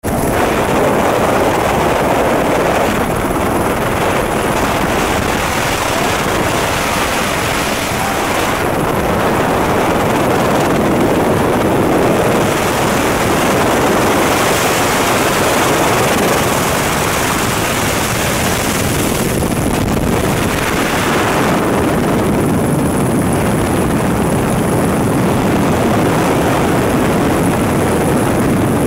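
Helicopter engine and rotor noise, loud and steady, heard from on board the helicopter.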